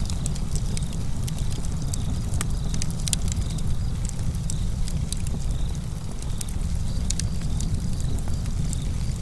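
Wood campfire burning, with a steady low rumble and frequent short, sharp crackles and pops all through, and crickets chirping faintly behind it.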